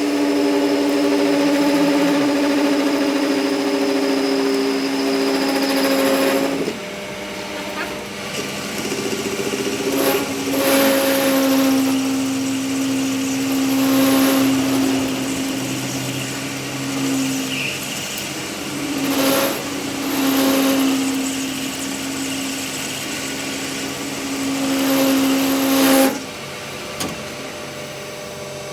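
An electric power tool's motor running in spells. It gives a steady hum that cuts off and starts up again a few times, with a brief hissy flare each time it starts or stops.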